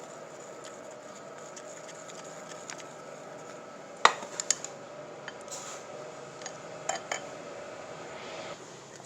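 Kitchen utensils and dishes clinking and knocking: a few sharp clinks, the loudest about four seconds in and a pair near the end, over a steady background hum.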